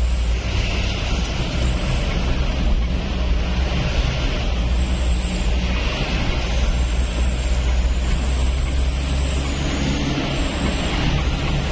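Steady low rumble of a moving vehicle: engine and road noise running evenly, with no horn or other sudden sound.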